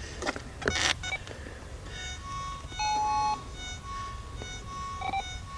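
Metal detector target tones over a dig hole: a string of short beeps at much the same pitch, with one longer, louder, lower tone about three seconds in. A couple of sharp knocks or scrapes come in the first second.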